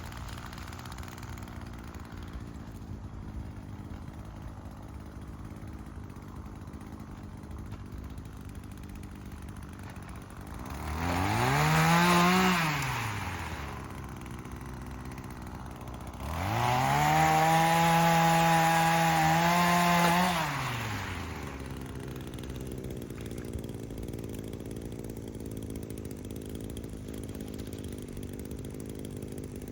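Small two-stroke Echo saw engine idling, revved up briefly about eleven seconds in, then held at full throttle for about four seconds before dropping back to idle.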